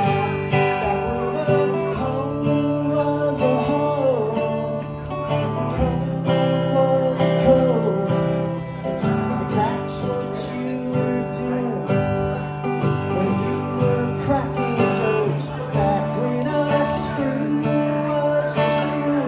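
Acoustic guitar strummed in a live song, with a melody line that slides up and down above steady low notes.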